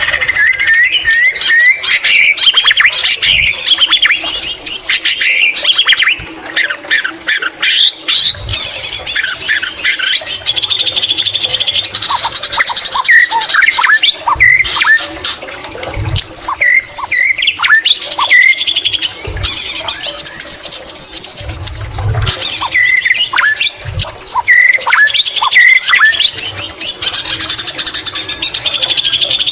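White-rumped shama (murai batu) singing loudly and without pause: a fast, varied run of whistles, trills and quick upward-sweeping notes. Mimicked greater green leafbird (cucak ijo) phrases are woven in. A few brief low thumps come through now and then.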